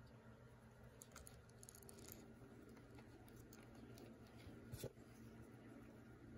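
Near silence with faint small clicks and rustles of fingers handling a small plastic doll and its ribbon sash, with one sharper click about five seconds in.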